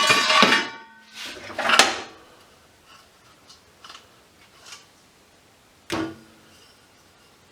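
Die-cast metal light-fixture parts clanking as they are handled and dropped: a ringing clank at the start, another just before two seconds in, and a sharp knock about six seconds in.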